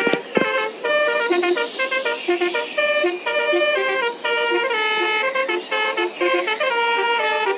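Telolet horn on a Basuri bus, a set of multi-tone air horns, playing a quick tune of short notes that change pitch one after another.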